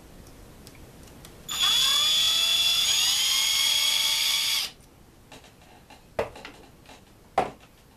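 Cordless drill with a nut driver bit spinning the wheel nut off an RC truck's hub: a motor whine of about three seconds that drops a little in pitch as it starts and then holds steady, cutting off sharply. A couple of small sharp clicks follow as the parts are handled.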